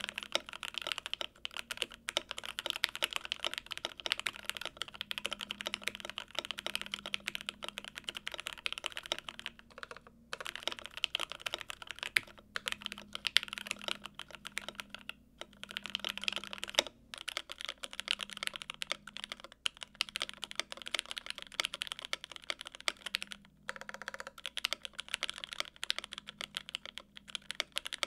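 Fast, continuous typing on an E6.5 gasket-mount mechanical keyboard with lubed Mauve linear switches, first wearing Infinikey Islander PBT keycaps. In the last few seconds the same board is typed on with GMK Bento ABS keycaps.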